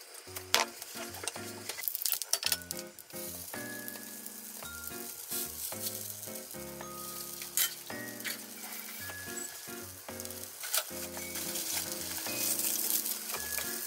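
Oil sizzling in a nonstick frying pan as wrapped rolls are laid in one at a time and fry, with a few light clicks as they go in.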